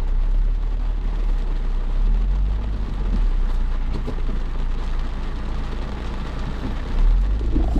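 Off-road 4x4 engine running at low revs while crawling over rocky trail, a steady low rumble under a rough hiss, a little louder about seven seconds in.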